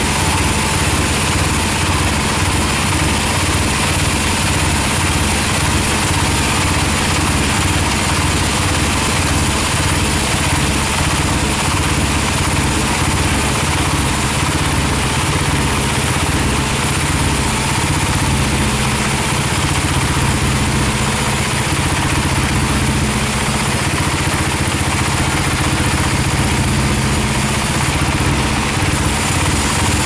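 Large band sawmill running steadily while its blade rips through a big albasia (sengon) log. The sound is a constant low machine drone with a hiss of cutting above it.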